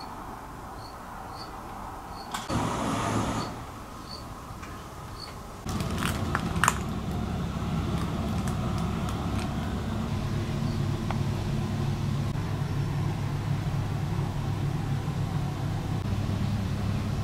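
A steady low motor hum, like an engine idling, that comes in suddenly about six seconds in, with a few sharp clicks as it begins. A short burst of noise comes earlier, around three seconds in.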